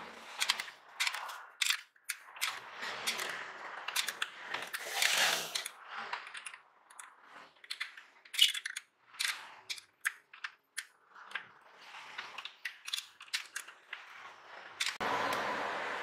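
Irregular clicks, taps and scrapes of a plastic snail-type car horn and its metal bracket and spade terminals being handled and fitted into place. About a second before the end, a steadier rushing noise comes in.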